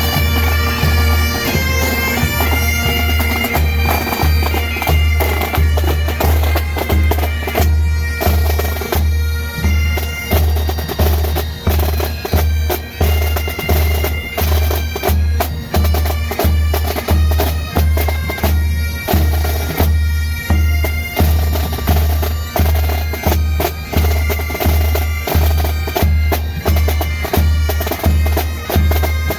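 Pipes and drums band playing: Highland bagpipes sound a melody over their drones, driven by a steady bass drum beat a little over once a second, with snare drum strokes filling in.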